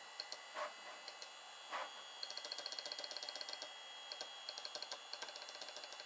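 Rapid ticking of a computer disk drive seeking: a run of about ten sharp clicks a second lasting over a second, with scattered single ticks around it, over a faint steady high whine.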